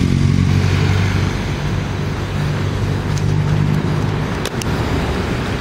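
Street traffic: motor vehicle engines running with a steady low hum. There are a few sharp clicks about four and a half seconds in.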